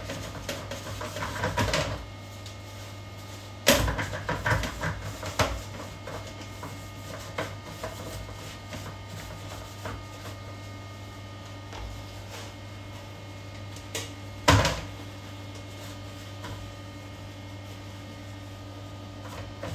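Gloved hands wiping and scrubbing a plastic toilet lid and seat, with rubbing and scattered knocks of the plastic; two sharp knocks stand out, about four seconds in and again near fourteen seconds. A steady low hum runs underneath.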